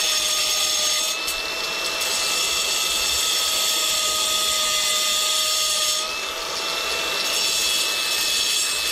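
Ridgid angle grinder running under load, its cutting disc grinding into the edge of a manufactured stacked-stone veneer panel: a steady motor whine over a loud grinding hiss, shifting slightly about a second in and again about six seconds in as the disc bites the stone.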